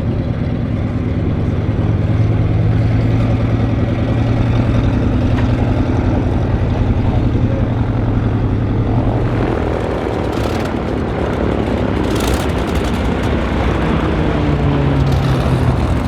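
Propeller-driven aircraft flying a display pass, its piston engine droning steadily, then fading and shifting in pitch as it moves past in the second half.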